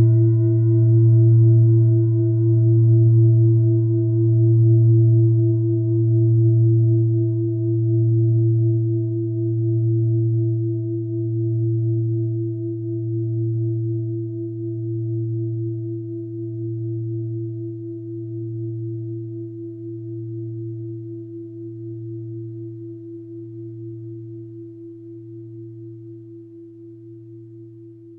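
A mindfulness bell rings on after a strike, slowly dying away. Its deep hum wavers in loudness about once every two seconds. The higher overtones fade out within the first ten seconds or so, leaving the low tones.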